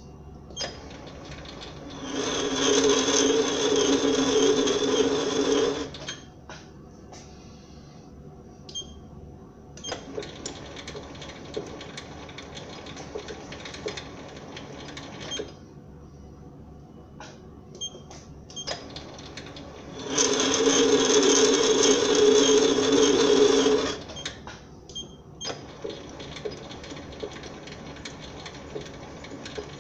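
SIEG SC4 mini lathe working through thread-cutting passes on a brass rod: two loud stretches of about four seconds each, with a steady whine, come a couple of seconds in and again about twenty seconds in. Between them the lathe runs more quietly, with scattered sharp clicks.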